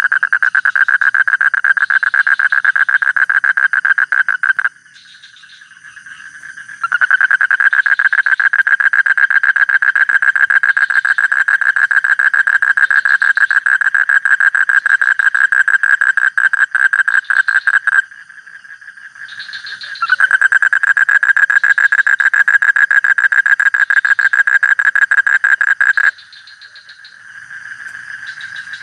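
Frog calling in long, rapidly pulsed trills, in three bouts of several seconds each separated by short pauses, with fainter frog calls carrying on in the gaps.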